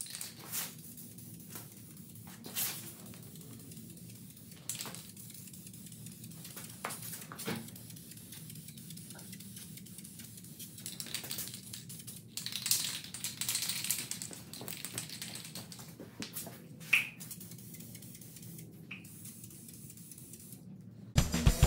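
Aerosol spray-paint can hissing in short bursts, the longest a little past the middle, with scattered sharp clicks and knocks.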